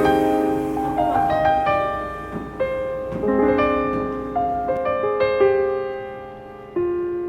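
Calm background piano music: a slow melody of single notes and soft chords, each left ringing as it fades.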